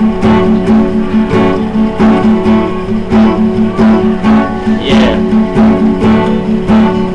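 Guitar strummed in a steady rhythm, about three strokes a second over a repeating low note, with a brief brighter sweep about five seconds in.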